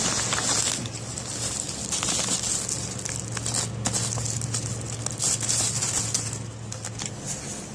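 Crinkling and rustling of something being handled, with many small irregular clicks, over a steady low hum.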